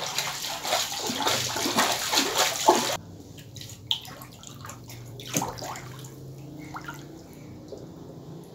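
Water splashing and sloshing loudly for about three seconds, then cutting off abruptly. After that comes a much quieter stretch with a few small knocks and a faint low hum.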